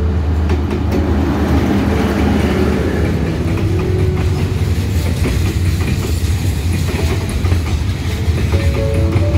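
Diesel freight train passing close by: a low steady rumble from the locomotive, then container flat wagons rolling past with an irregular clickety-clack of wheels over the rail joints.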